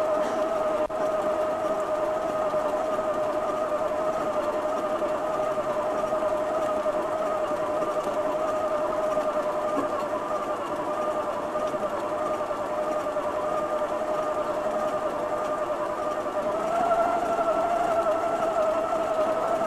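A steady machine whine, one held tone with an overtone, from a small motor. Near the end it gets slightly higher and a little louder.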